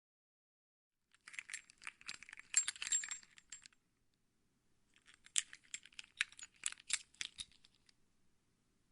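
A bunch of car keys jangling in two shakes, about 1 to 4 seconds in and again about 5 to 8 seconds in: quick clinks of metal keys knocking together.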